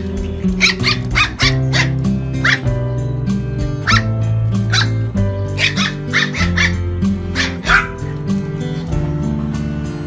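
Small puppy barking, short high barks in quick runs that stop near the end, over background music.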